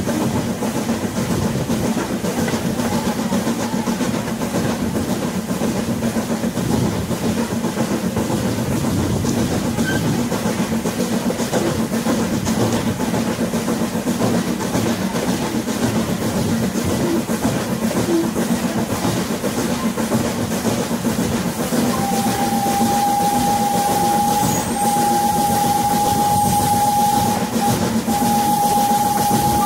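Passenger train rolling along, heard from on board as a steady low rumble of wheels and cars. About two-thirds of the way in, the steam locomotive's whistle starts sounding one steady high note, held in long blasts with two brief breaks.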